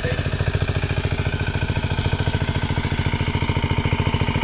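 A small engine running steadily with a fast, even pulsing beat.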